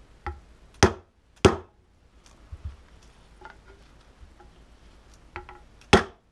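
Mallet blows driving a new fork seal into a Honda CB350 fork slider, with the old seal used as a driver. Three hard knocks, about a second in, half a second later and near the end, with lighter taps between them.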